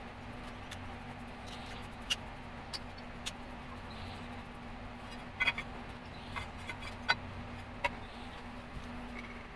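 Sharp clicks and knocks as steel coilover and strut assemblies are handled and set down on a tile floor, about eight in all and several close together in the middle, over a steady low hum.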